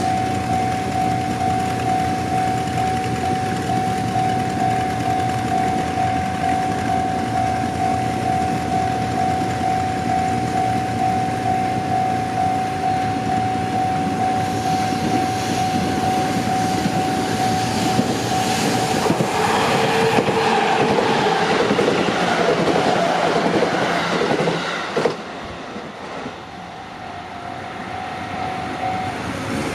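A Japanese railway level crossing's warning bell ringing in a steady repeating tone, then a train passing through the crossing, its noise building for several seconds until it drowns out the bell. The train noise drops away sharply about 25 seconds in, and the bell is heard again, fainter.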